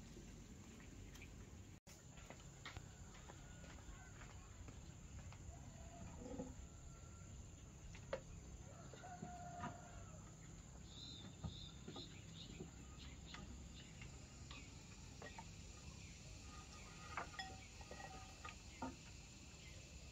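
Faint low hiss with scattered short animal calls and a few light clicks.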